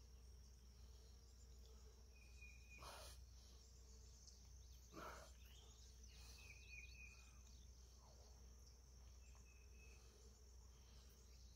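Near silence outdoors: a faint, steady high insect drone, with a few faint short chirps and two soft brief sounds about three and five seconds in.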